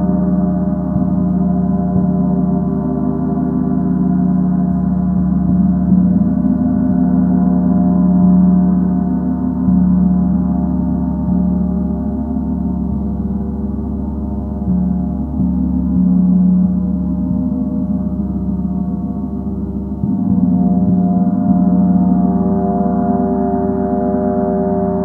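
Gong played in a long, continuous wash of many layered ringing tones, swelling and easing in loudness.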